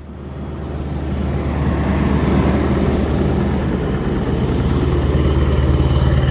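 2001 Ford Excursion's 7.3-litre Power Stroke V8 turbo-diesel idling steadily, a low, even rumble that grows louder over the first two seconds.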